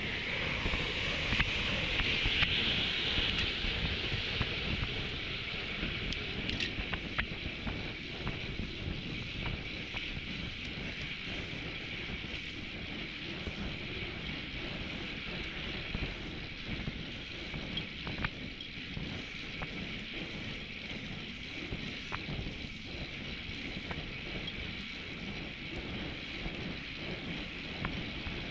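Wind buffeting the microphone of a camera on a moving road bike, with the hiss of the tyres on asphalt. It is louder for the first few seconds while riding at about 36 km/h, then a little quieter as the bike slows to about 27 km/h.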